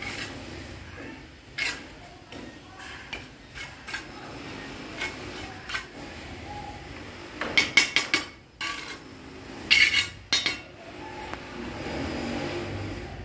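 Bricklayer's steel trowel tapping clay bricks into their mortar bed and scraping mortar. There is a single sharp tap early on, a quick run of about five taps about halfway through, and a few more a couple of seconds later.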